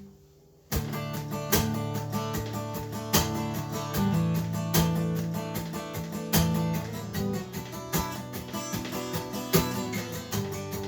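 Acoustic guitar strummed in a steady rhythm, starting about three-quarters of a second in: the instrumental intro of a song.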